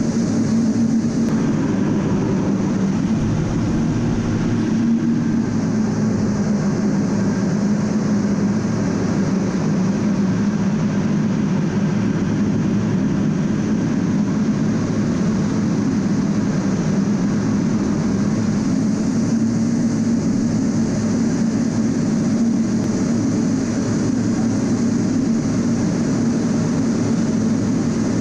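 Steady in-cockpit noise of an A-10 Thunderbolt II in flight: its two TF34 turbofan engines and the rushing air, a constant drone with a low hum.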